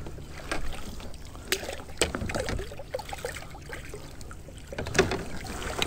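Light water trickling and splashing around a kayak, with scattered small clicks and knocks, while a hooked bass is reeled in to the boat.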